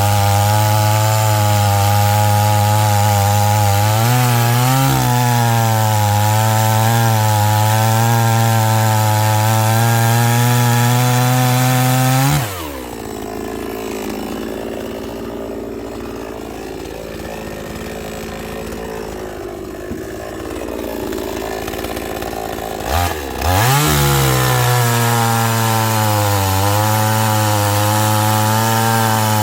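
Two-stroke chainsaw cutting through wood, its engine note wavering under load. About twelve seconds in it drops back to idle. After about eleven seconds it revs up again into the next cut.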